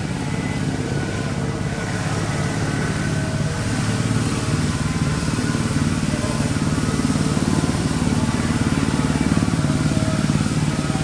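A small engine running steadily, a low, fast-pulsing drone that grows a little louder about four seconds in.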